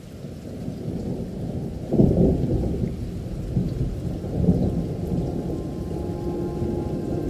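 Thunderstorm: a low rolling rumble of thunder over steady rain, swelling loudest about two seconds in and again briefly around four and a half seconds.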